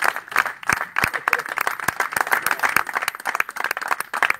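Audience applauding: many hands clapping in a dense, uneven patter that keeps on without a break.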